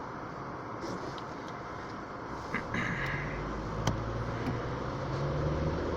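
Car cabin noise while driving: a steady rush of road noise. A low engine hum rises up under it about halfway through, with a few faint clicks.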